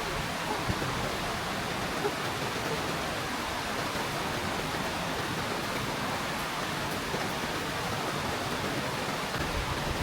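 Waterfall rushing in a steady, unbroken wash of water noise.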